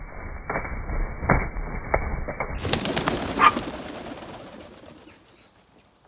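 White doves flapping off a windowsill, their wings clattering in a run of sharp claps. The sound is dull and muffled for the first two and a half seconds, then clearer, and it fades out near the end.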